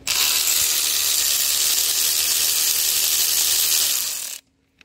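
Red cordless power tool running on a long socket extension, spinning a bolt out of a Mercedes M272 V6's oil filter housing. A loud, steady whirring that starts suddenly and runs about four seconds, then fades and stops.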